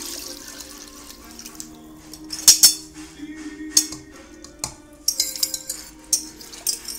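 A brief pour of salt-water brine over chicken at the start, then a string of sharp clinks and knocks of utensils against a bowl, over background music.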